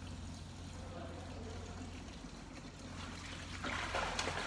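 A low steady hum, with water trickling and splashing starting about three seconds in.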